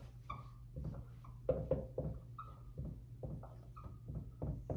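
Dry-erase marker squeaking and scratching across a whiteboard in short, irregular strokes as letters of a formula are written.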